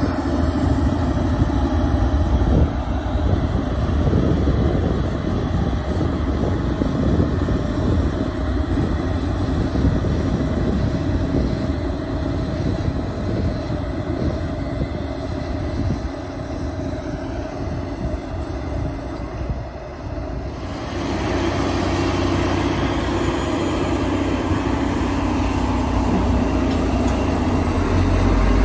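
Heavy farm machinery engines running steadily during silage harvest. About twenty seconds in, the sound changes abruptly, becoming louder and brighter.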